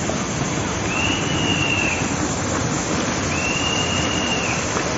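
Steady rush of floodwater. Two high, thin tones, each about a second long, sound over it, the first about a second in and the second past the midpoint.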